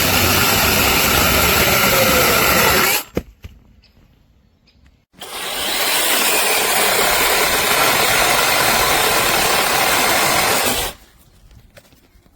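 Brushless cordless chainsaw running, stopping suddenly about three seconds in. It starts again about two seconds later, runs for nearly six seconds, then stops.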